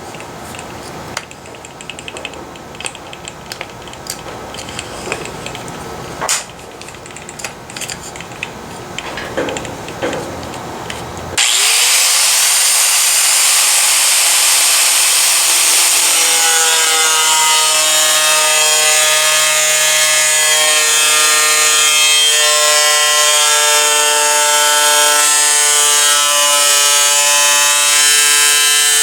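Knocks and handling rattles for about eleven seconds. Then a power cutting tool starts abruptly and runs loud and steady, with a high hiss and a whine that wavers in pitch as it cuts a rust hole out of the truck's sheet-metal hood.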